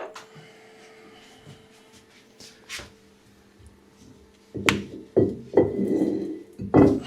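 Hand tools and washing-machine parts being handled during disassembly: a few faint clicks, then a burst of knocks and clatter about four and a half seconds in.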